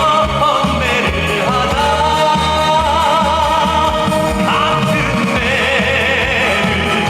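Live band music: a steady low backing under a long, wavering melody line.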